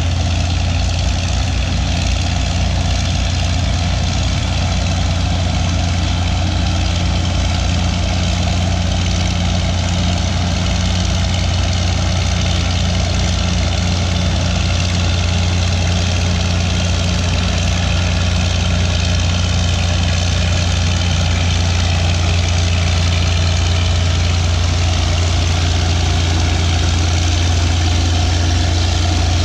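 Diesel engines of antique crawler bulldozers running steadily, as an Allis-Chalmers crawler dozer pushes a blade-load of dirt.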